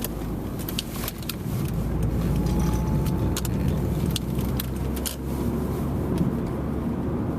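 Cabin noise inside a Honda Civic with stiff sport suspension and low-profile tyres on a bumpy, potholed road: a steady engine and tyre rumble with many short sharp rattles and knocks as the car goes over bumps.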